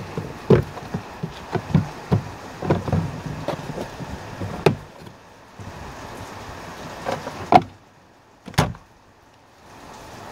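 Plastic clicks and knocks as a Jeep Commander's glove box is fitted back into the dashboard, with two louder knocks near the end as it is pushed shut. A steady hiss sits underneath and drops out for about two seconds near the end.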